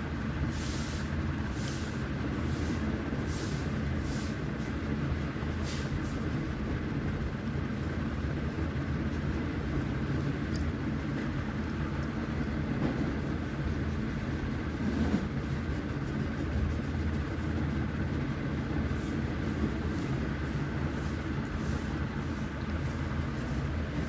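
Steady low mechanical hum throughout, with faint rhythmic scratching strokes in the first few seconds and again near the end.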